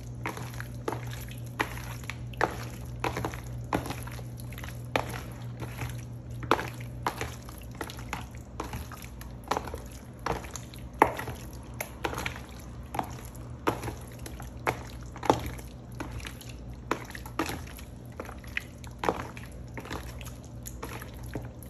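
A bare hand squishing and turning raw chicken pieces in a thick yogurt marinade in a plastic bowl: irregular wet squelches and slaps, several a second, over a steady low hum.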